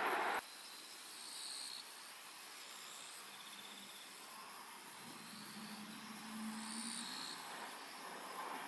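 A train's running sound cuts off abruptly about half a second in, leaving faint summer outdoor ambience. Insects chirp in short high-pitched spells, and a faint low hum is heard from about five to seven seconds in.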